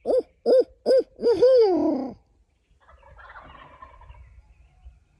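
Owl hooting in a barred owl's cadence: about five short hoots that rise and fall, ending in a longer falling note. It is followed by a fainter, rapid gobbling from wild turkeys on the roost.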